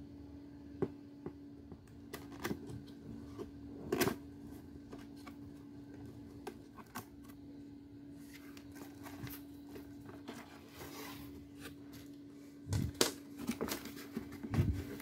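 Gloved hands handling a cardboard box and a paper instruction manual: scattered taps and clicks and a stretch of paper rustling, then a cluster of louder knocks and scrapes near the end as the cardboard box is opened. A faint steady hum lies underneath.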